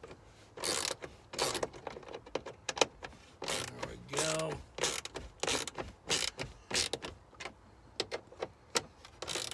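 Plastic dashboard trim being handled and pushed back into place: a run of irregular rubbing and scraping noises with clicks, and a brief plastic creak about four seconds in.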